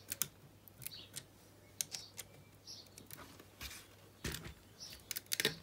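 Light, irregular clicks and taps of a resin AT-AT model being handled, its jointed legs moved and repositioned, with a quick cluster of clicks near the end.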